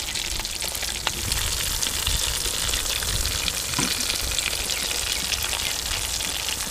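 Breadcrumb-coated chicken drumsticks deep-frying in hot oil in a large aluminium pan, giving a steady sizzle, with a light tap about a second in.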